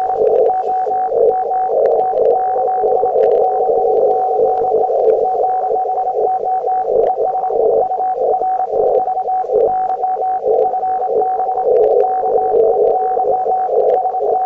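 Shortwave transceiver receiving on the 20-metre band in CW mode: a steady Morse tone with a few short breaks over dense, fluttering band noise squeezed through a narrow receive filter, with scattered static clicks.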